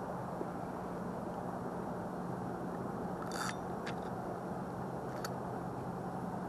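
A fishing rod and spinning reel being handled close to the microphone: three short clicks and rustles a little past the halfway point, over a steady low background noise.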